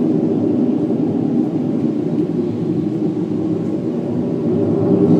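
An unexplained low rumbling drone coming from the sky, like an airplane passing overhead but lingering instead of fading away. It is loud and steady, dips slightly in the middle and swells again near the end.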